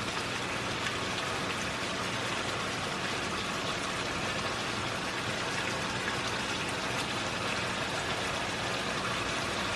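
Chicken thighs frying in hot oil in a large skillet: a steady sizzle with fine crackling.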